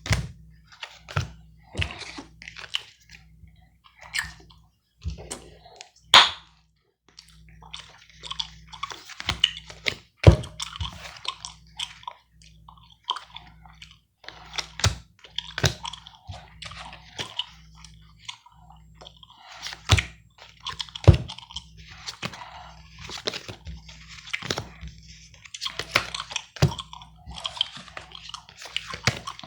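Gum being chewed close to the microphone: irregular wet clicks and smacks throughout, with a few sharper, louder clicks now and then.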